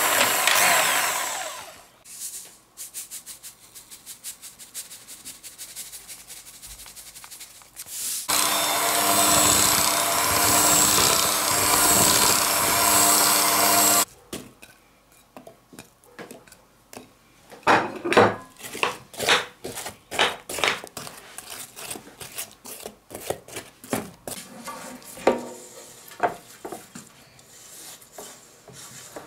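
Electric hand mixer beating cake batter in a bowl, running steadily and winding down in the first two seconds. A run of light ticks follows, then the mixer runs again for about six seconds and cuts off. Scattered knocks and taps of kitchen handling come after it, loudest a little past the middle, as apple slices go into the batter.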